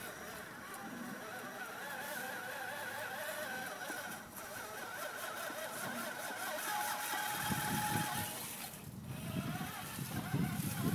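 Radio-controlled scale rock crawler's electric motor and gears whining steadily as the truck crawls over rocks. Heavy low rumbling on the microphone in the last few seconds.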